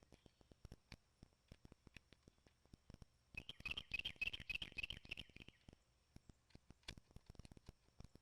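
Quiet, scattered clicks and light taps of small chainsaw parts being handled on a workbench. From about three seconds in there is a louder, scratchy squeaking run lasting a little over two seconds.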